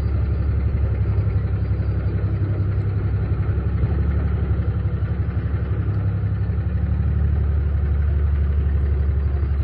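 A vehicle engine running steadily with an even low drone.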